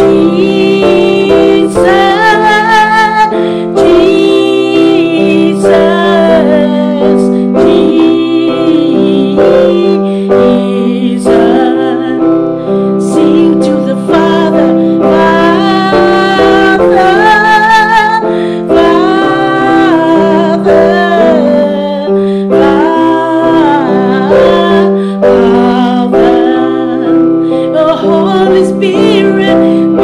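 A woman singing a worship song with vibrato, accompanying herself on an electronic keyboard with sustained chords.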